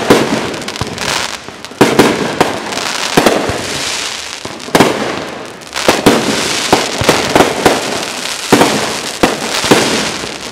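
Aerial fireworks shells bursting in quick succession: more than a dozen sharp bangs, some in close pairs, with dense crackling between them.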